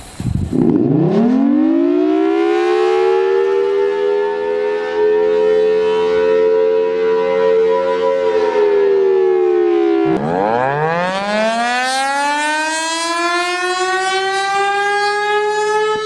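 Tornado warning siren winding up from low pitch to a loud steady tone, which sags slightly about eight seconds in. About ten seconds in it cuts abruptly to another siren winding up from low pitch, still rising at the end.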